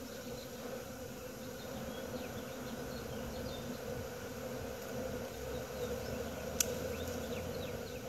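Honeybee swarm buzzing at the hive, a steady hum. Short high chirps sound over it, and there is one sharp click about six and a half seconds in.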